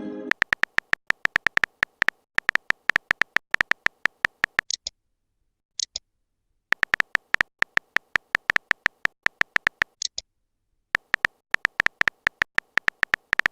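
Typing-click sound effect of a chat animation, in quick even runs of about five or six clicks a second with short pauses. Short high chimes come three times.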